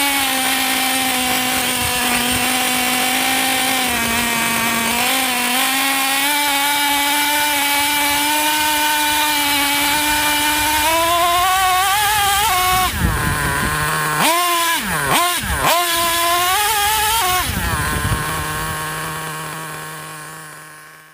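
Small nitro RC truck engine, a two-stroke glow engine, running at a steady high pitch, climbing a little about halfway through. Near the end it is revved up and down in several quick blips, then settles to a lower idle and fades away.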